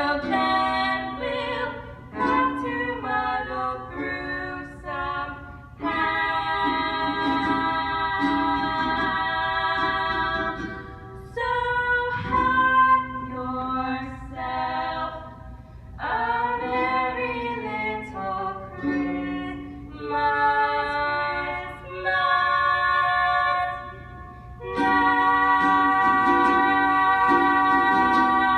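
Female voices singing a Christmas medley in harmony, largely a cappella, ending on a long held note.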